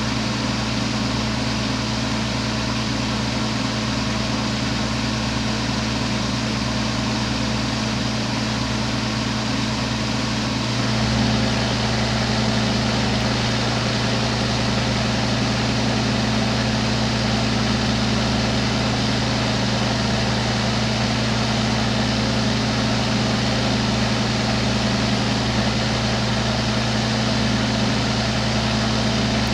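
Steady hum with an even hiss from a glassworking torch and a ventilation fan running together, a little louder from about eleven seconds in.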